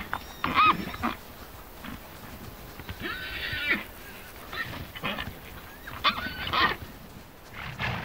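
Przewalski's wild horses giving short, high, pitched cries, about four of them a couple of seconds apart, as a stallion mounts a mare.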